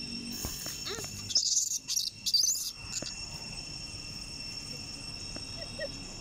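Insects droning steadily at a high pitch, with a short louder burst of high-pitched chirping about a second in that stops just before the three-second mark.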